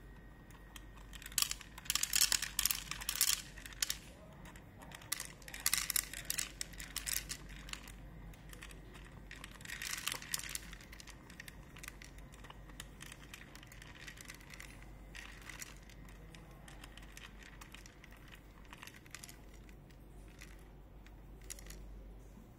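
Dry kibble rattling and clattering as an automatic pet feeder dispenses it into its bowl, in several bursts, with the loudest about two seconds in, about six seconds in and about ten seconds in, then a few scattered pieces dropping.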